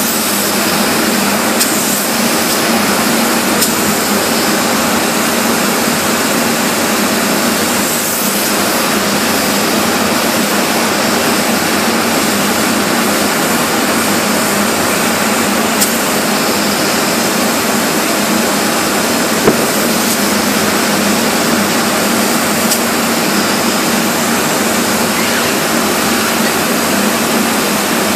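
Spray polyurethane foam gun hissing steadily as foam is sprayed into wall cavities, over a steady machine hum.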